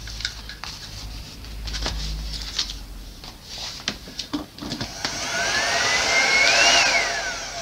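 Handheld hairdryer switched on briefly: its fan motor whines up in pitch with a rush of air, then is switched off and winds down with a falling whine. A few clicks and knocks come before it.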